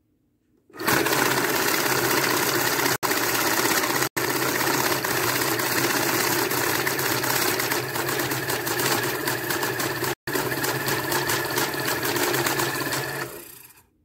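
Electric banknote counting machine feeding a stack of paper bills through at speed: a steady motor whir with fast flicking of the notes. It starts about a second in and stops near the end, cutting out for an instant three times along the way.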